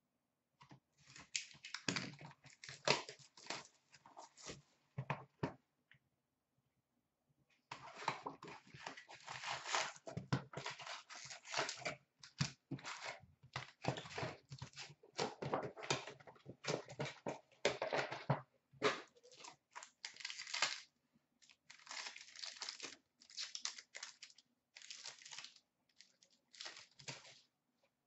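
Trading-card hobby box being torn open and its foil-wrapped packs pulled out and ripped open: repeated tearing and crinkling in irregular bursts, with a pause of about two seconds after roughly five seconds.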